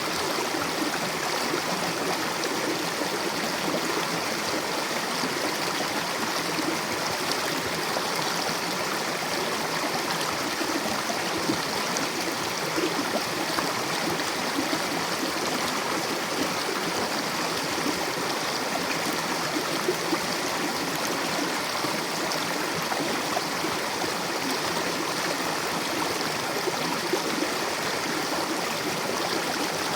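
Mountain river flowing over rocks: a steady rush of water.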